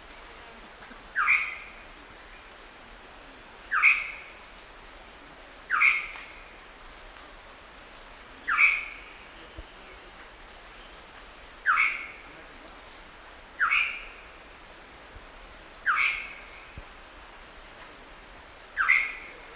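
Black-hooded oriole calling: a short call repeated eight times, about every two to three seconds.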